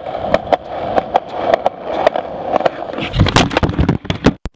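Skateboard wheels rolling on a concrete footpath, clicking regularly over the joints in the pavement. A little over three seconds in comes a loud clattering impact as the board-mounted camera falls off and hits the concrete.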